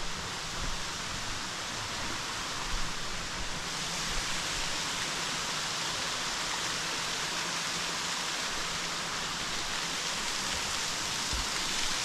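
Steady rush of a mountain creek tumbling over small waterfalls, getting louder about four seconds in.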